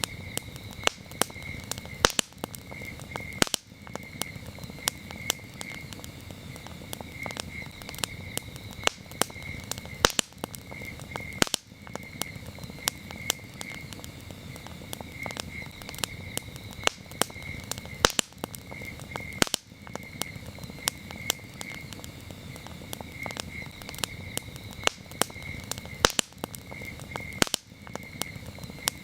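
Campfire burning, with frequent sharp pops and crackles over a low rush of flame. Crickets chirp steadily in short repeated pulses.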